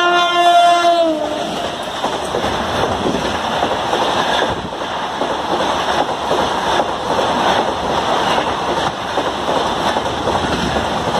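An electric locomotive's horn sounds for about the first second, its pitch dropping as it ends. Then comes the loud, steady rush of the Mumbai Rajdhani Express's LHB coaches passing close at high speed, with irregular knocks of the wheels over rail joints.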